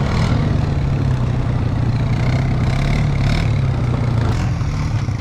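ATV engine running steadily at low speed while riding, heard from on board, with some faint knocks or rattles over it.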